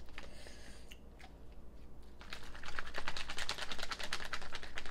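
Plastic pickle pouch crinkling as it is handled and shaken: a quick, dense crackle of plastic that starts about two seconds in.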